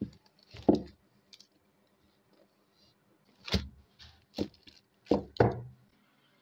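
Handling noise from a velvet-covered Quran case and its clear plastic wrapping being unpacked: about six short bumps and crinkly rustles, in two clusters, near the start and in the second half.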